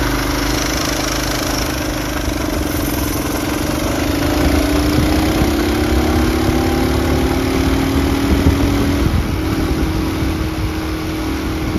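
Large minibike's small single-cylinder engine running at full throttle during a top-speed run on stock 10x jackshaft gearing. Its pitch climbs slowly as the bike gathers speed, then holds steady near the end.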